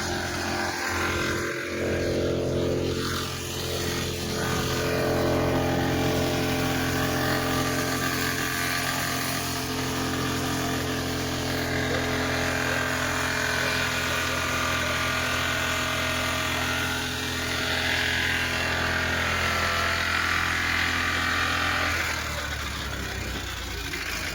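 Atul auto-rickshaw engine running on steadily with an even hum, after it raced and threw out heavy smoke; the mechanic says it is running the wrong way round. About 22 seconds in, the sound drops lower and quieter.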